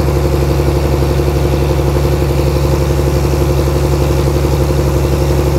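Generator engine running steadily under electrical load, a loud, even drone with a fast, regular pulse.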